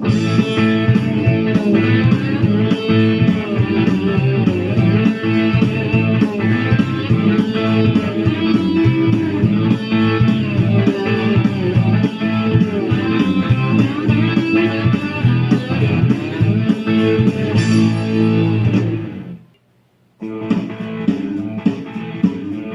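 Instrumental background music with plucked-string notes. It stops abruptly about 19 seconds in, falls silent for about a second, then starts again.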